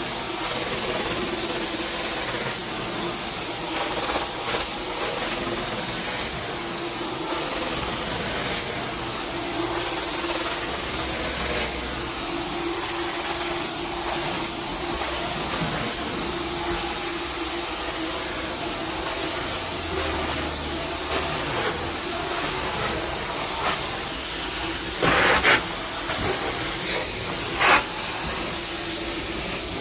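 Carpet-cleaning vacuum suction running steadily, a hissing rush over a steady hum, with two brief louder rushes near the end.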